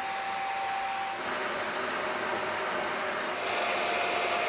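Corded stick vacuum cleaners running at full power: a steady motor whine over rushing airflow, which shifts in pitch about a second in and changes again after three seconds. These are among the loudest machines in the test, at over 74 dB.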